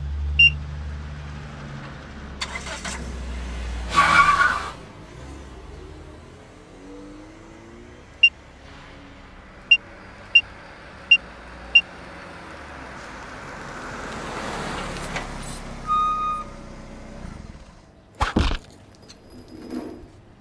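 Cartoon sound effects of a van: a low engine rumble at first, then a row of five short electronic beeps about a second apart as logger readings are picked up, a whoosh swelling past, a short chime and a sharp thump near the end.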